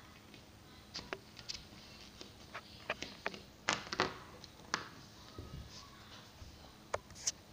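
Faint, scattered light taps and clicks of small plastic toy figurines being picked up and set down by hand on a hard floor.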